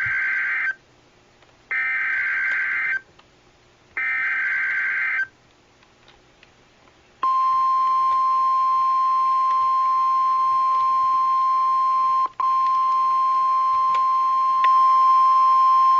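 Emergency Alert System (SAME) header from NOAA Weather Radio: three short buzzy data bursts of about a second each. After a pause comes the steady 1050 Hz warning alarm tone, which lasts about nine seconds with a momentary break partway through. It announces a tornado watch.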